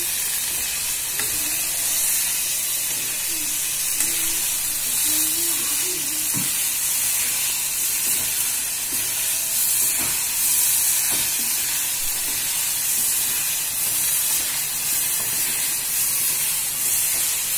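Small onions, tomatoes and garlic sizzling steadily in hot oil in an aluminium kadai while a steel ladle stirs them, with a few faint knocks of the ladle against the pan.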